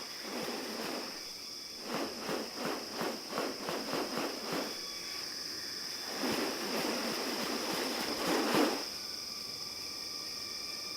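Rainforest ambience: a steady high-pitched insect drone, with a quick run of about a dozen evenly spaced pulses and, a little later, a couple of seconds of rougher noise that peaks and stops about two-thirds of the way through.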